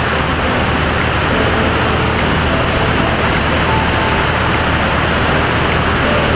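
Single-engine propeller plane in cruise: a steady engine and propeller drone under a loud, even rush of wind over the outside-mounted camera.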